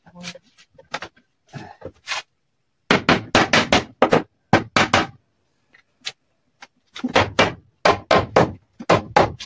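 Hammer striking a wooden panel door in two quick runs of blows, about five a second, the first a few seconds in and the second near the end.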